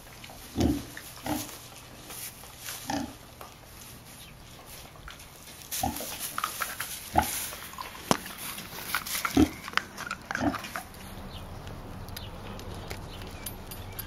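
Young pigs grunting, about seven short low grunts over some eleven seconds, with light rustling of straw bedding as they root about.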